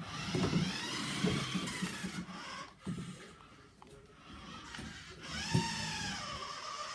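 Small electric motor of a toy remote-control car whining as it is driven, its pitch rising and falling with the throttle. It eases off in the middle and whines again near the end, with a couple of short knocks.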